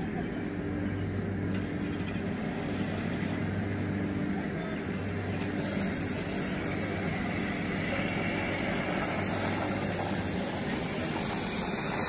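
Car engine running with a steady low hum, under a hiss that grows stronger in the second half.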